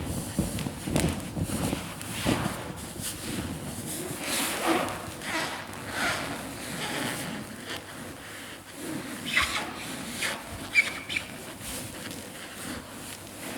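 Large latex balloons rubbing and squeaking under a person riding and bouncing on them, with soft thumps. There are a couple of short high squeaks about two-thirds of the way through.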